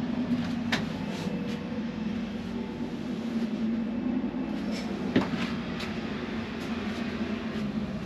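Steady low mechanical hum with a few knocks and clicks over it, the sharpest about five seconds in.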